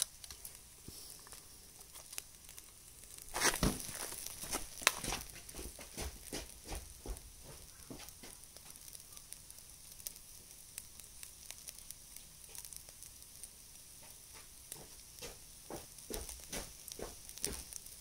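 Food sizzling in an aluminium tray over a charcoal shichirin grill: a steady hiss with scattered crackles and clicks, and a louder flurry of them about three and a half seconds in. The food is starting to scorch in the unoiled tray.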